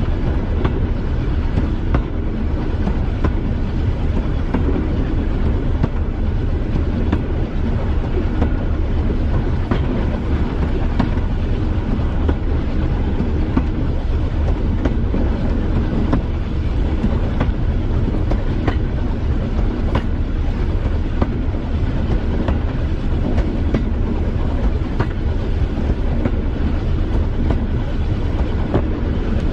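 Class 205 'Thumper' diesel-electric multiple unit running along the line: a steady low drone from its diesel engine and running gear, with occasional clicks from the wheels over rail joints.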